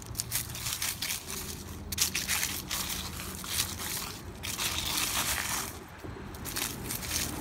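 Jetson Rave Extreme Terrain hoverboard's fat tires rolling over asphalt and dry fallen leaves, the leaves crunching and crackling irregularly under the wheels, with the board's motors humming low underneath for most of the ride.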